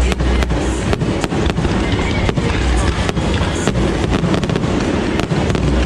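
Fireworks display going off: a rapid string of sharp bangs and crackles, several a second, over a dense, steady low background.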